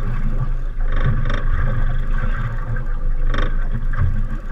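Steady low rumble of wind and water around a small open boat at sea, with short splashy bursts of noise about a second in and again past three seconds.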